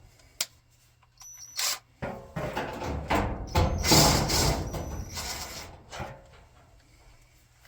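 Hands working on the front panel of a Kenmore electric dryer: a sharp click, then scraping, rustling and rattling as the wire connector is unplugged and the panel screws are taken out, loudest in the middle of the stretch.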